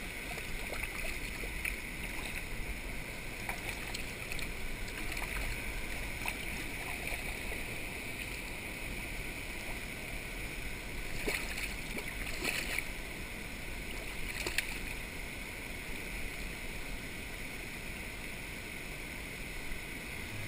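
Creek water flowing, a steady rush, with a few faint clicks and taps just past the middle.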